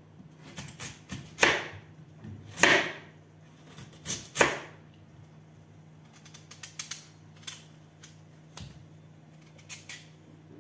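Kitchen knife cutting a raw potato on a plastic cutting board: a few sharp knocks of the blade on the board in the first half, then lighter scattered clicks as the potato is trimmed in the hand. A steady low hum runs underneath.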